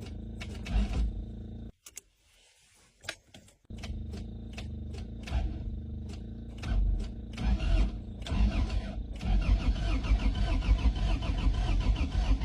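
Starter motor cranking a 1980 Honda Civic's four-cylinder engine over with a steady rhythmic chug, the engine turning but not firing. The cranking stops for about two seconds near the start, then resumes and runs on.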